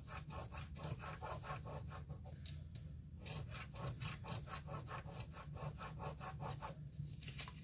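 A coin scratching the coating off a scratch-off lottery ticket: quick back-and-forth scraping strokes, several a second, with a few brief pauses.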